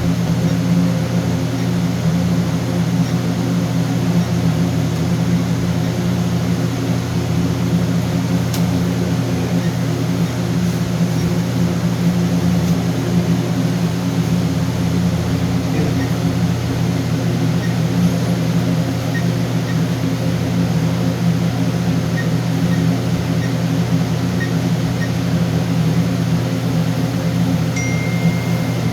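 A steady, loud low machine hum, with a few faint short beeps in the second half and a longer beep of about a second near the end. The beeps come from an alarm keypad as keys are pressed.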